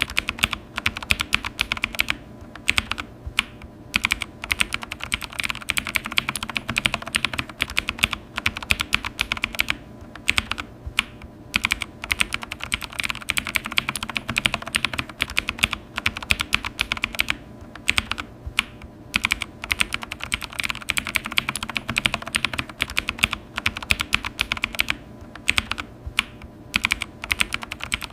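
Computer keyboard being typed on quickly and steadily, a fast run of key clicks broken by a few short pauses.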